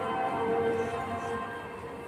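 Background music with held, bell-like tones.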